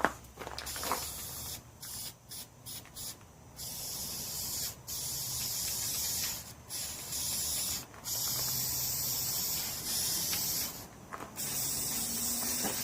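Aerosol spray can of truck bed coating spraying: a few short blasts, then longer bursts of hiss lasting a second or two each, with brief pauses between them.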